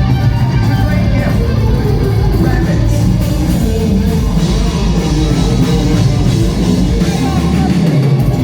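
Rock band playing loudly: electric guitars, bass and drums in a dense, unbroken wall of sound.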